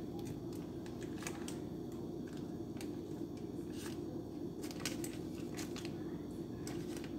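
Scattered soft clicks and paper rustles of hands handling a paper of butter slices and setting them on chicken wings in a metal baking pan, over a steady low hum.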